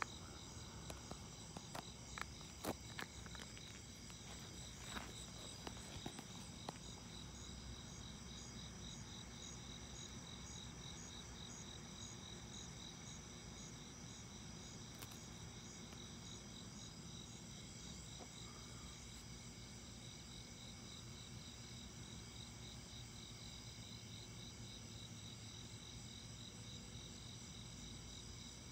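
A night chorus of insects trilling steadily in several high, evenly pulsing bands. A handful of sharp clicks stand out in the first seven seconds.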